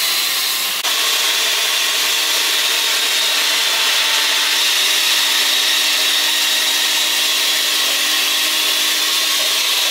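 Electric blender running steadily at high speed, mixing a batido (fruit milkshake), with a brief break about a second in.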